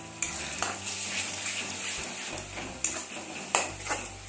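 Metal spatula scraping and knocking against a metal kadhai, with several sharp clacks, while browned onions and ginger paste sizzle in hot oil.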